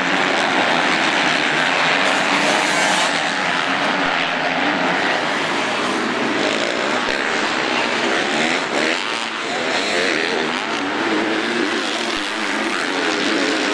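Motocross bikes racing on a dirt track, several engines overlapping, their pitch rising and falling as the riders work the throttle.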